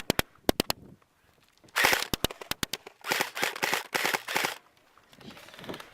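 Airsoft guns firing: a few sharp single shots at first, then after a short pause rapid strings of shots for a couple of seconds.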